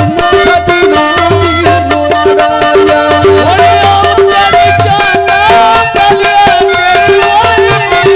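Punjabi goon mahiye folk music with a fast, dense drum beat and a short melodic figure repeating over a held tone.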